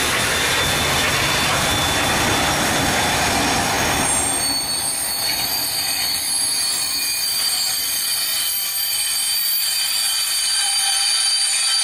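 A steam-hauled train of vintage passenger coaches rolling past at close range. A broad rushing noise fills about the first four seconds, then the coaches' wheels keep up a steady high-pitched squeal as they go by.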